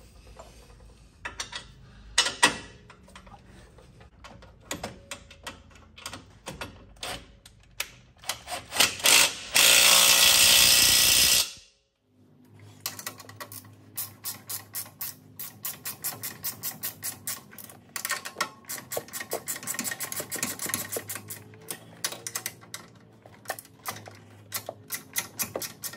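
Tools working on a vehicle's front suspension: scattered metal clicks and knocks, then a loud steady burst of a power tool lasting about two seconds and stopping abruptly. After a short silence, a hand ratchet clicks rapidly and steadily over a low hum as the suspension nuts are run up.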